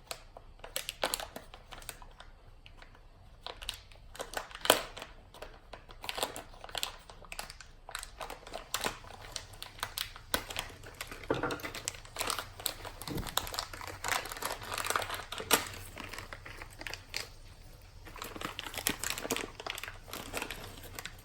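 Plastic parts bag crinkling and rustling as it is opened and the RC truck parts inside are handled, with many small irregular crackles and clicks.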